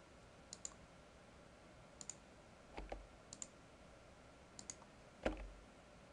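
Faint computer mouse clicks. Each is a quick press-and-release pair, four of them about a second and a half apart. Two duller knocks fall between them.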